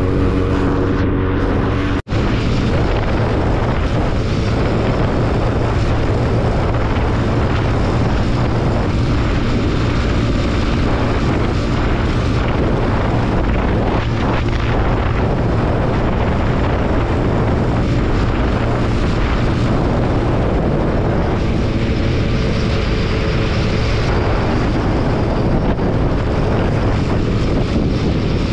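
Motorcycle riding at around 90 km/h: the engine runs steadily under a constant rush of wind and road noise. The sound cuts out briefly about two seconds in.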